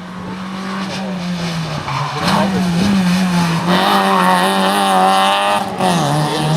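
Fiat Cinquecento rally car's engine running hard at high revs, growing louder. The pitch dips briefly about two seconds in and again near six seconds, then climbs back.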